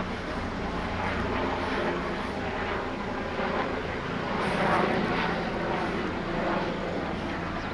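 Sheriff's helicopter running, a steady drone of engine and rotor.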